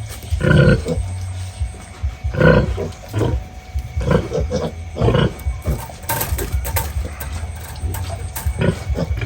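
Pigs squealing and grunting in a pen: several loud separate calls, over a steady low rumble.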